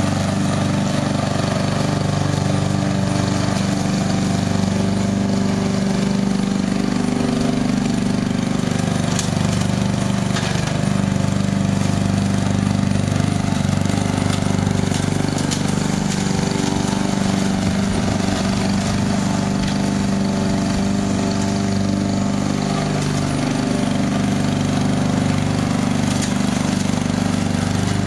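Small lawn mower engine running steadily at a constant speed on a radio-controlled robot mower, cutting grass as the mower drives across the lawn.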